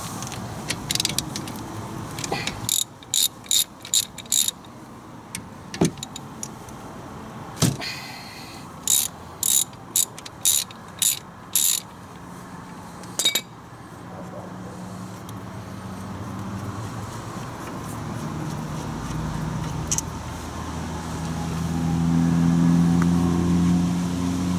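Ratchet wrench clicking in short runs of quick strokes, loosening the bolts of a disc brake caliper. In the second half a vehicle engine's low hum builds and is loud near the end.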